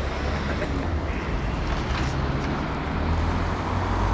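Heavy-haulage lorry's diesel engine running as it slowly pulls a low-loader carrying a railway coach: a steady low rumble that grows louder near the end.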